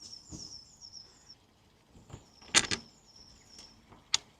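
Metal hardware clinking as motorcycle engine mounting bolts are fitted by hand: one clear clank about two and a half seconds in and a sharp click near the end, with faint high squeaks in the first second.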